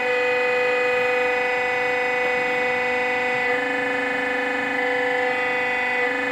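Hydraulic power unit of a brick-making press running, its pump giving a loud, steady whine whose tone shifts briefly a couple of times as the cylinders work.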